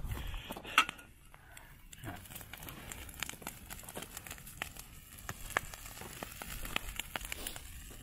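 Dry grass burning, with irregular sharp crackles and pops; one louder pop comes a little under a second in.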